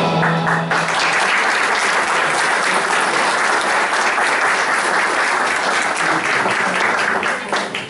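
Audience clapping steadily, tapering off near the end, after background music stops less than a second in.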